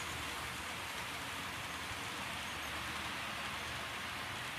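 HO scale model freight train rolling past at speed: a steady rushing of its small metal wheels on the track.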